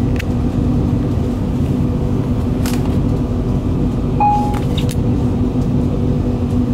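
Cabin sound of a VR Pendolino Sm3 electric tilting train running at speed: a steady rumble from the wheels and track under a constant low hum, with a few light clicks. A brief high tone sounds about four seconds in.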